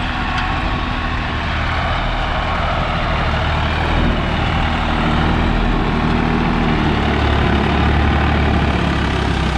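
Swaraj 744 FE tractor's three-cylinder diesel engine running steadily under load, pulling a seven-tine cultivator through dry soil.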